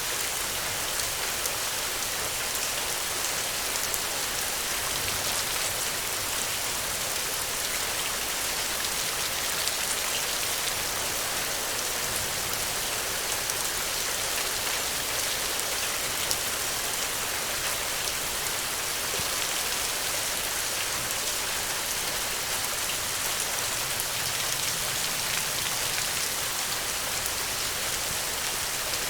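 Steady rain falling on the ground, an even hiss with many fine drop ticks.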